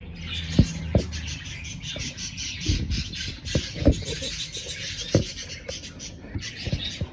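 A flock of budgerigars chattering and calling continuously, with a number of sharp knocks mixed in, the loudest within the first four seconds.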